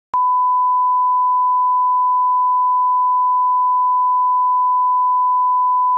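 1 kHz reference tone accompanying SMPTE colour bars: a single steady sine tone, switched on abruptly just after the start.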